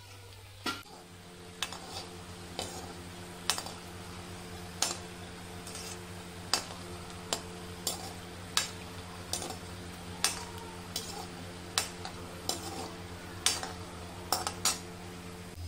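Metal spatula tapping and scraping against a steel frying pan, in irregular sharp clinks roughly once a second, as a potato patty shallow-fries in oil with a faint sizzle. A steady low hum runs underneath.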